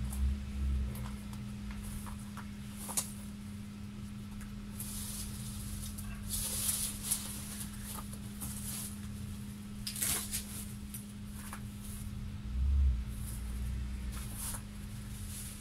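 Dry cut branches and brush rustling and crackling as they are pulled and dragged by hand, in several short bursts, with a couple of dull thuds. A steady low hum runs underneath.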